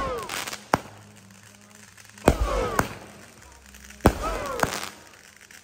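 Aerial fireworks bursting overhead: sharp bangs about every second and a half, mostly in pairs about half a second apart.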